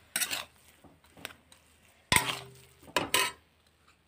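Steel spatula scraping and knocking against a metal kadhai while stirring mashed potato masala: a few short scrapes, with a sharper clank about two seconds in that rings briefly.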